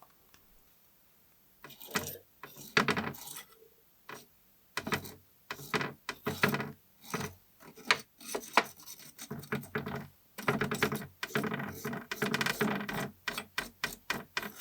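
Small metal parts of a diecast model car clinking and clicking as they are handled on a hard surface: quiet at first, then a run of short taps and rattles that come thickest near the end.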